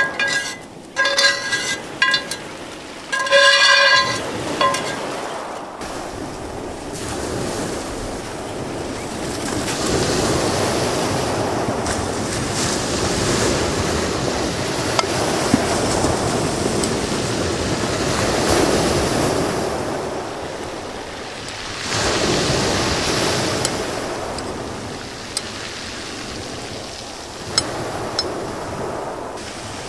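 Sea waves surging onto a beach, swelling and fading every few seconds, with wind on the microphone. A few short horn-like toots sound in the first four seconds, and there are one or two faint clicks.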